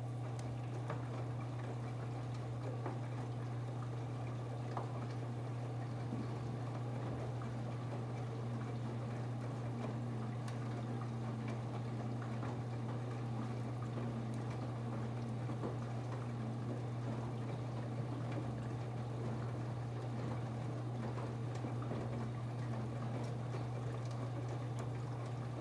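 Samsung 10.2 kg washing machine in its wash cycle: water sloshing and churning in the drum over a steady low hum, with small scattered ticks.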